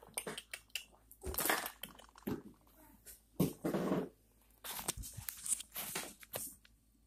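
Handling noise from a camera being picked up and moved: irregular knocks and clicks with two longer rustling bursts, the loudest about a second and a half in and just after three seconds in.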